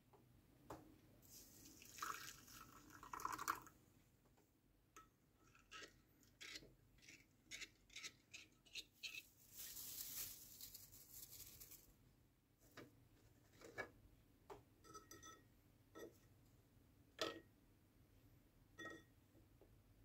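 Quiet kitchen handling sounds: a short pour of liquid into a small bowl about two to three seconds in, a string of light taps and clicks, and plastic cling film rustling around the middle.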